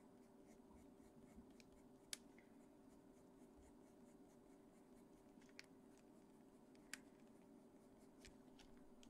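Faint scratching of a Caran d'Ache Pablo coloured pencil shading on paper, with a few small sharp clicks, over a low steady hum.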